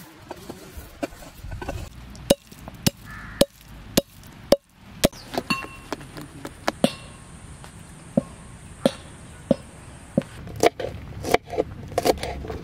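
A series of sharp knocks and clicks from kitchen work, ending with a knife chopping green chillies on a wooden cutting board in quick strokes near the end.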